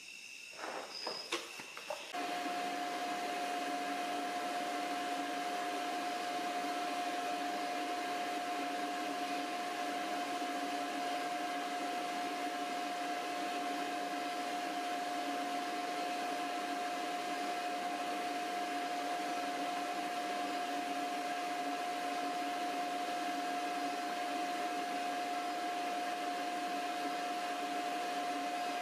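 A few light knocks as steel ring weights are set on the sand mould. About two seconds in, a steady motor-driven whir with a constant high whine starts suddenly and runs on evenly.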